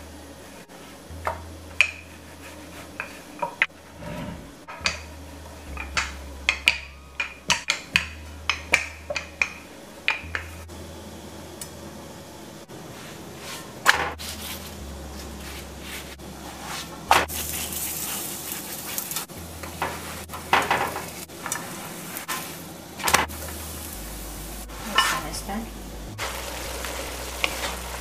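Wooden rolling pin knocking and rolling on a wooden board as roti dough is rolled out, with many sharp knocks in the first half. Then oil roti dough sizzles on a hot flat griddle, and a wooden spoon stirs frying pumpkin in a wok.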